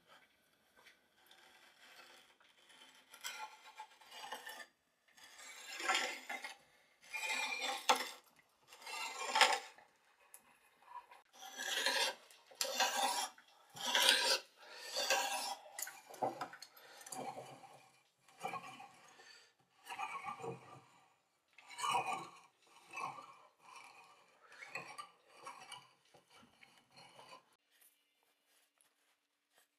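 A hand tool working wood in a long series of scraping strokes, each lasting under a second, at an uneven pace, dying away near the end.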